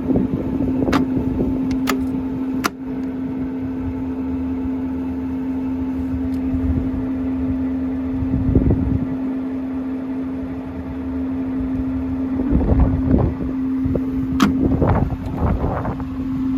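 Colchester Student MK1 metal lathe running with a steady mechanical hum, with three sharp clicks in the first three seconds and another about fourteen seconds in. Irregular louder rattling comes in over the last few seconds.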